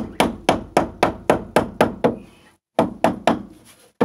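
Hammer driving a nail into an upright wooden post: quick, even blows at about four a second, with a short pause about two and a half seconds in before the blows start again.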